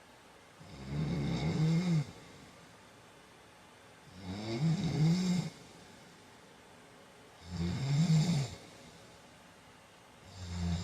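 A man snoring in his sleep: four loud snores about three seconds apart, each lasting a second or so, the last cut short near the end.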